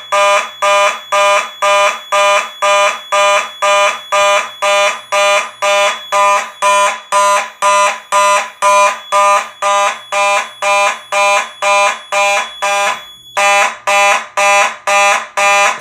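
Simplex 4903-9221 fire alarm horn sounding in march-time coded pulses, about two and a half blasts a second, loud and buzzy. About thirteen seconds in one beat is skipped, a common glitch with Notifier panels. The pulses then resume and cut off right at the end as the signals are silenced.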